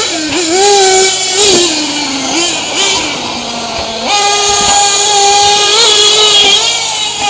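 Two-stroke glow engines of 1/8-scale nitro RC trucks racing at high revs, their pitch rising and falling with the throttle. The loudest engine's pitch sags for a couple of seconds, then jumps back up about four seconds in and holds.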